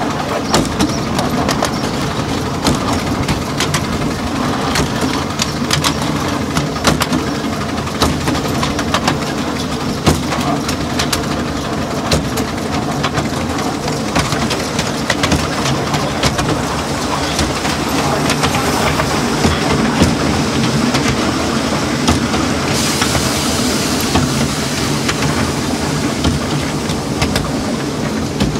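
Miniature railway train in motion, heard from on board: a steady running noise with frequent sharp clicks of the wheels over rail joints and pointwork.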